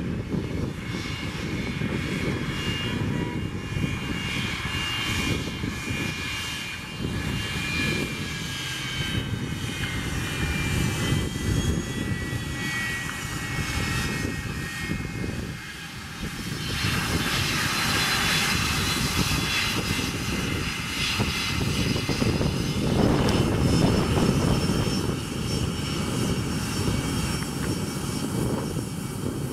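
A McDonnell Douglas MD-80-series airliner's rear-mounted Pratt & Whitney JT8D turbofans running at taxi power, a steady jet noise with high whistling turbine tones that shift in pitch. The sound swells louder about seventeen seconds in.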